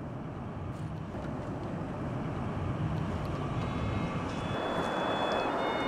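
Steady outdoor traffic rumble that slowly grows louder. A little past halfway, a few faint high held notes of music begin, changing pitch in steps.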